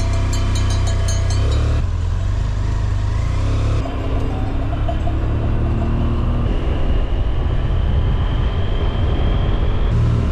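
BMW F800GT motorcycle riding under way: its engine running under heavy wind rumble on the handheld camera's microphone. A whine rises slowly in the second half as the bike picks up speed.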